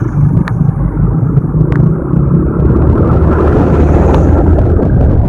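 Heavy diesel engine running steadily with a loud low rumble, with a few short sharp clicks about half a second, a second and a half, and four seconds in.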